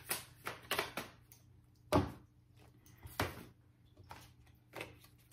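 Tarot cards being shuffled in the hands and then laid down on a table: a string of short papery taps and slaps, the two loudest about two and three seconds in.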